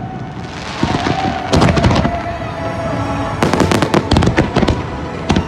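Fireworks finale: aerial shells bursting in rapid clusters of bangs, with a hiss of crackling stars between the volleys.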